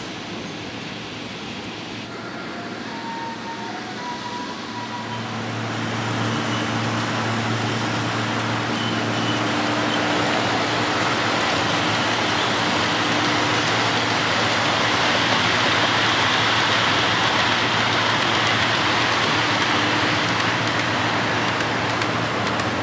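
7.5 mm scale metre-gauge model train running along the track, a steady rolling rush with a motor hum beneath it. It grows louder from about five seconds in as the train draws near.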